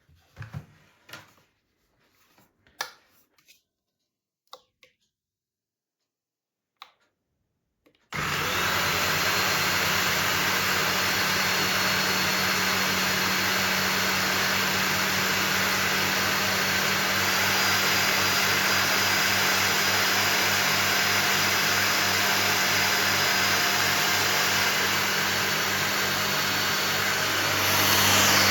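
A few light clicks and knocks of handling, then, about eight seconds in, a handheld Xiaomi dust mite vacuum cleaner switches on and runs steadily, with a thin high whine over its motor noise that steps up slightly partway through.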